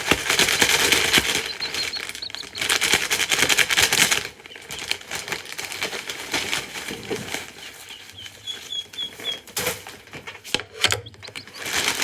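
A bag of animal bedding is being opened and handled: dense crackling and rustling of the bag and the bedding, heaviest in the first few seconds. There are a few short high peeps from the baby chicks, once early on and as a quick run of four later.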